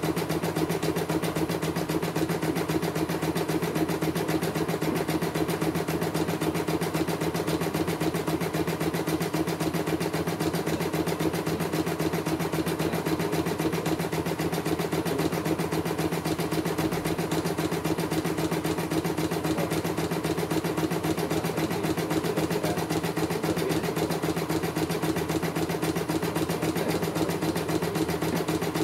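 CNY E900 portable computerized embroidery machine stitching a design: a steady, rapid, even run of needle strokes over its motor's hum.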